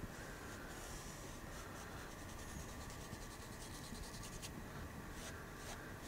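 Small fan brush with white oil paint dragged lightly across a canvas: a faint, scratchy rasp of quick short strokes.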